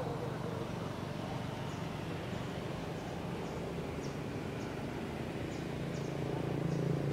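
Outdoor ambience: a steady low drone, with faint, short, high chirps or ticks about once a second.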